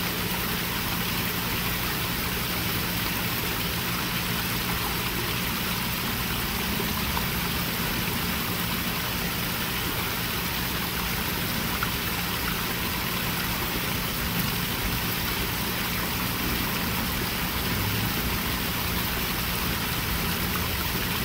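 Small pond waterfall splashing steadily, a continuous rush of falling water, with a low steady hum underneath.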